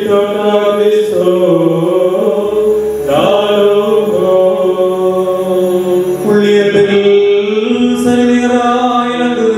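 Liturgical chant: a man's voice singing long held melodic lines, with new phrases starting about three and six seconds in.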